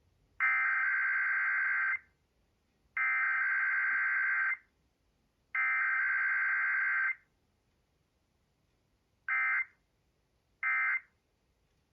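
Emergency Alert System SAME digital header tones: a raspy, warbling data screech sent three times in bursts of about a second and a half, a second apart, then two much shorter bursts near the end. This is the coded header that opens a required weekly test of the alert equipment.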